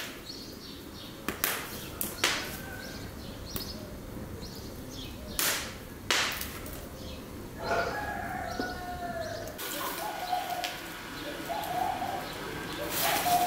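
Wood fire crackling in a rusty metal grill, with a few sharp pops scattered through. Small birds chirp, and from about eight seconds in a dove coos repeatedly. Near the end comes a burst of rattling as charcoal is tipped from a sack onto the fire.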